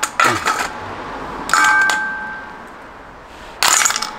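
Three sharp metallic clinks, the second ringing on briefly as it fades.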